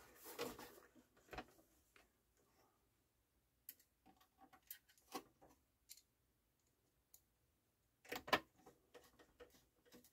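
Faint clicks and light scrapes of hands and a screwdriver working on a CD changer's metal chassis and faceplate during reassembly, with a louder cluster of knocks about eight seconds in.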